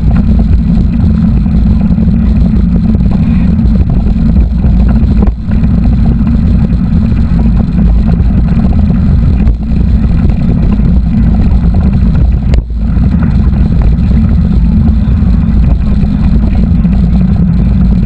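Loud, steady rumble of wind buffeting the camera microphone while riding a mountain bike, with a sharp click about twelve seconds in.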